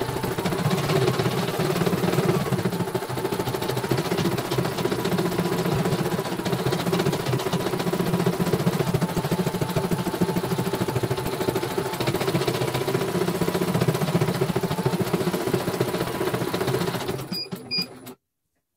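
CNY portable computerised embroidery machine stitching at speed, a steady rapid needle-and-hoop rattle. Near the end it runs down and stops, with two short beeps.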